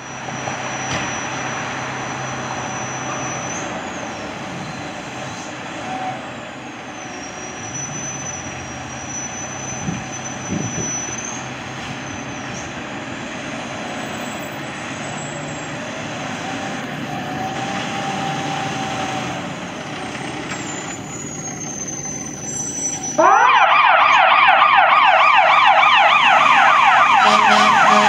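Fire department ladder truck's engine running with road noise, then its electronic siren comes on suddenly about three-quarters of the way in, loud and rapidly rising and falling in a fast yelp.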